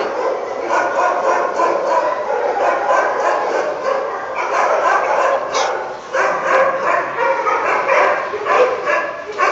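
Several dogs barking, yipping and whining over one another in a continuous din, with a short lull about six seconds in.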